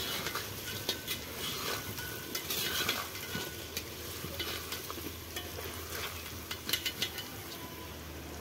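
A perforated metal skimmer stirring fried chicken pieces into frying onions and garlic in a metal pot, scraping and clinking against the pot over a steady sizzle of hot oil.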